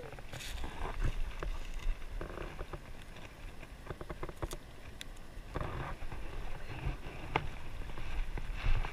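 Shallow seawater sloshing and lapping around a wading angler, with wind rumbling on the microphone and a scatter of small clicks and knocks from fishing tackle being handled.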